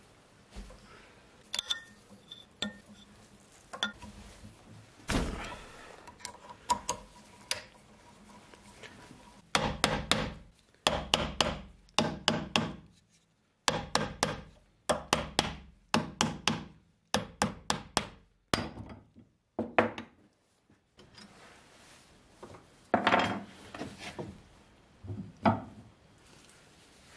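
Hammer tapping on steel lathe parts: a string of sharp knocks, two or three a second in short runs with brief pauses, then a couple of heavier knocks and some metal rubbing as the steel three-jaw chuck is handled near the end.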